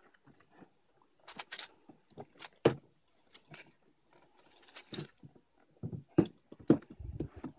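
Irregular hollow plastic knocks and bumps from a toddler's ride-on push car as a small child climbs into it, the loudest a couple of seconds in and again near the end.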